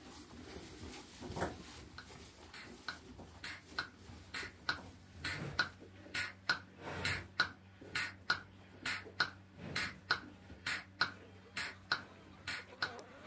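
Bucket milking machine running, its pulsator clicking in an even rhythm about two and a half times a second over a faint steady hum of the vacuum line. The clicks start about two seconds in.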